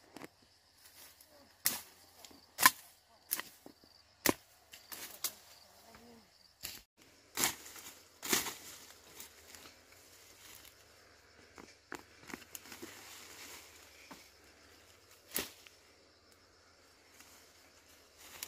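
A series of sharp snaps and clicks at irregular intervals, about a dozen in all, the loudest about two and a half seconds in, with soft rustling between them.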